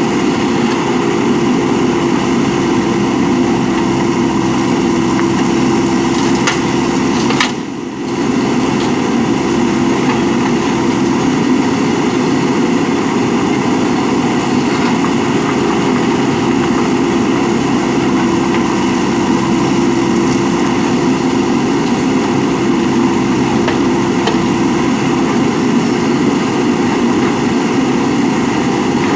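JCB 3DX backhoe loader's diesel engine running steadily, with a brief dip about seven and a half seconds in.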